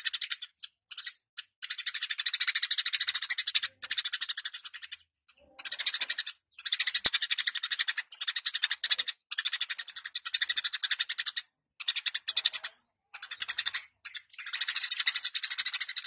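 Eurasian tree sparrow chirping in fast, rattling runs of chatter, each lasting one to two seconds with brief pauses between, about a dozen runs in all.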